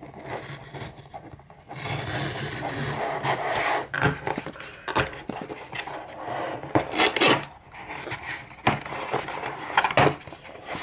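Tear strip of a corrugated cardboard shipping box being pulled along its length: a long ripping rasp about two seconds in, lasting about two seconds. Then scraping and knocking as the cardboard flaps are folded open and the box is handled.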